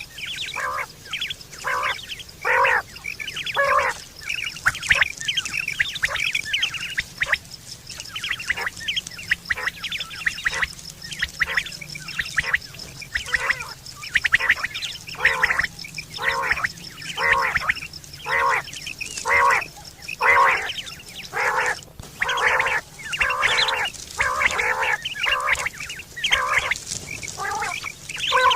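Quail calling over and over in short, harsh, quacking notes, about two a second, as used as a lure for hunting. A faint steady high-pitched buzz runs behind.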